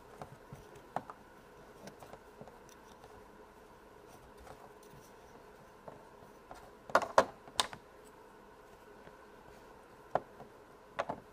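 Scattered small clicks and taps of hands working Play-Doh with plastic tools, with a quick cluster of sharper clicks about seven seconds in and two more near the end.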